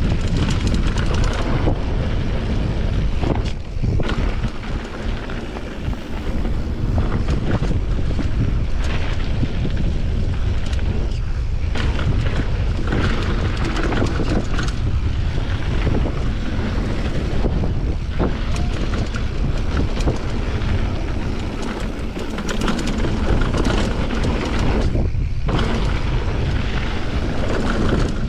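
Downhill mountain bike run: wind rushing over the microphone, tyres rolling on a dirt trail, and the bike rattling and knocking over bumps throughout.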